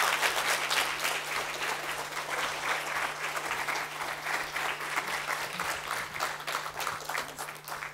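Audience applauding, loudest at first and slowly tapering off toward the end.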